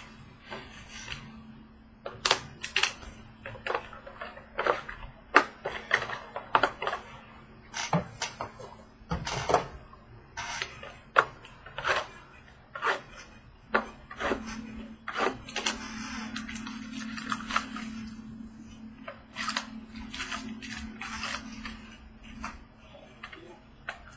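A sealed trading-card box being unwrapped and opened by hand: sharp crinkles of plastic wrap and clicks and taps of cardboard, with a longer stretch of steady rustling about halfway through. A faint steady hum runs underneath.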